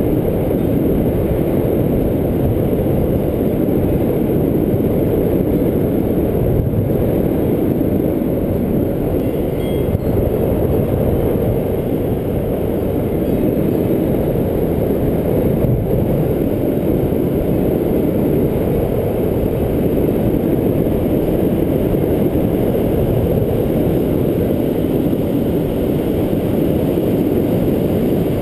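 Steady, loud wind rumble from the airflow over a camera microphone mounted on a paraglider wing in flight.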